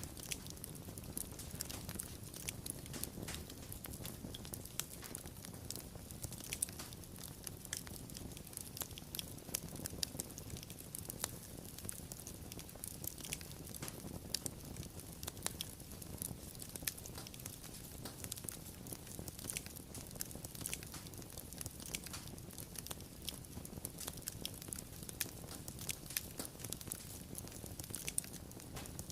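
Wood fire crackling: frequent sharp, irregular pops and snaps over a steady low rumble of burning.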